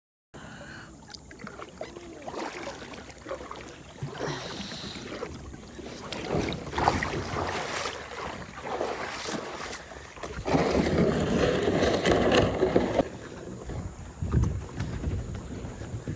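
Water splashing and sloshing in a stream, uneven and swelling loudest for a few seconds in the second half.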